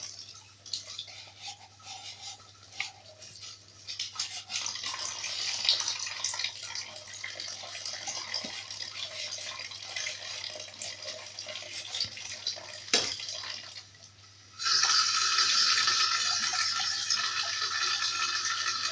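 Dishes being washed by hand at a kitchen sink: uneven scrubbing with scattered light clinks. About three-quarters of the way through, the tap is turned on and water runs steadily into the sink, louder than the scrubbing.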